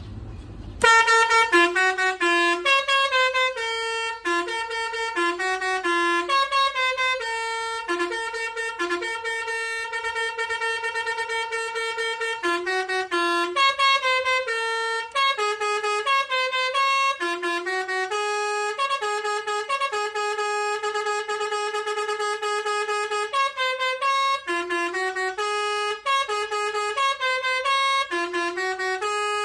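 Basuri telolet air horn, a multi-note bus horn, playing a tune from about a second in, stepping from note to note with some notes held for a few seconds.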